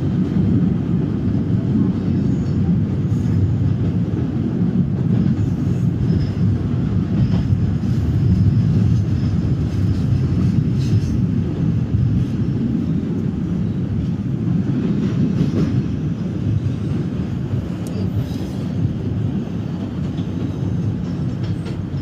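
MBTA Red Line subway train running, a steady low rumble heard from inside the car.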